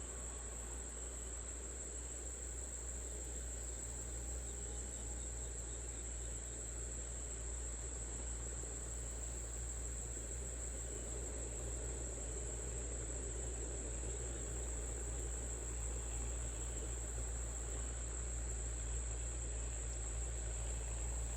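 Steady high-pitched chorus of crickets over a low, even rumble that grows slightly louder.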